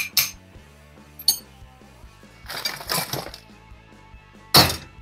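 Metal parts of an alternator pulley clinking as they are handled on a workbench: a few sharp clinks, a short rattle about halfway, and a loud clank near the end. Background music plays underneath.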